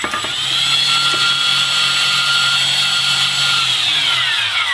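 Brushless motors of a Walkera QR X350 quadcopter, propellers off, running on the bench with a steady high whine, then winding down with falling pitch near the end. It is a motor test on a drone where one motor, on a broken ESC, does not run.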